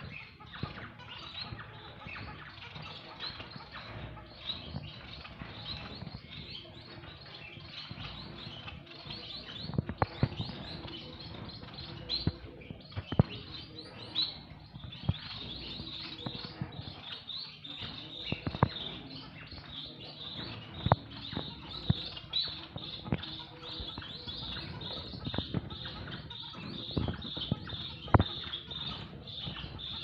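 White Bengalese finches chirping continually with many short, high calls, mixed with scattered sharp taps and wing flutters as the birds move about the cage.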